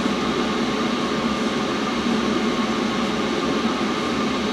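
Chinese diesel air heater running steadily while it warms up, its blower fan and burner making an even rushing hum with a faint steady tone. The glow plug is off and it is burning fuel on its own, with heat output still rising.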